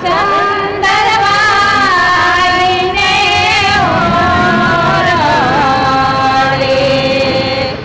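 Women singing a traditional Gujarati wedding song (lagna geet) in chorus, with long held notes and slow slides between pitches.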